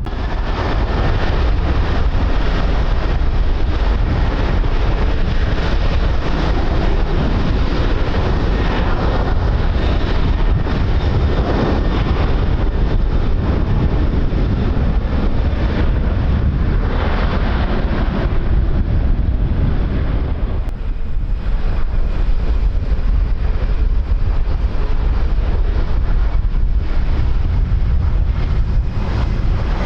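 Strong wind buffeting the microphone: a loud, continuous rumble that swells and eases in gusts, dipping briefly about two-thirds of the way through.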